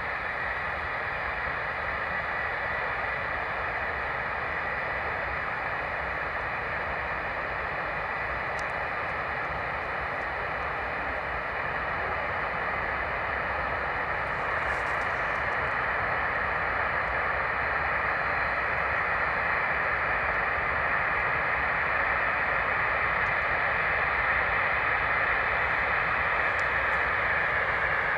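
Avro Vulcan's Rolls-Royce Olympus turbojet engines running on a ground engine test: a steady roar with a high whine, getting gradually louder from about halfway through.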